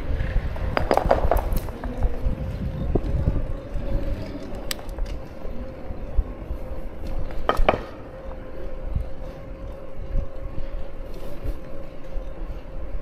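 A small vehicle rolling over paving stones: a low rumble and a steady hum at one pitch throughout, with a few sharp clinks and rattles, about a second in, near the middle and again a little later.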